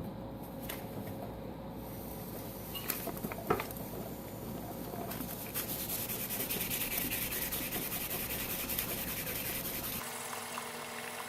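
Processor heatsink base being sanded by hand on fine 2000-grit sandpaper to lap it flat and shiny: continuous rapid rubbing strokes, with a couple of knocks about three seconds in. The rubbing grows louder and denser about halfway through.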